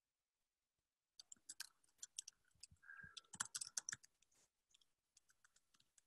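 Faint typing on a computer keyboard: quick key clicks starting about a second in, densest for the next three seconds, then thinning out.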